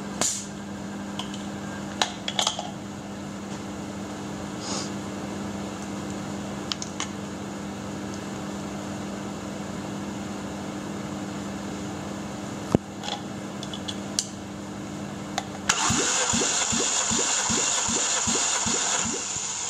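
Starter motor cranking a bare Toyota 4ZZ-FE 1.4 L 16-valve four-cylinder for about four seconds near the end, with an even rhythmic chug of compression strokes: the crank of a compression test on the second cylinder. Before that, a steady low hum and a few sharp clicks from tools being handled.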